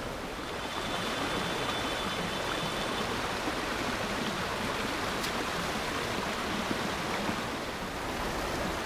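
Fast, shallow river water rushing and breaking around the waders, a steady noise of flowing water.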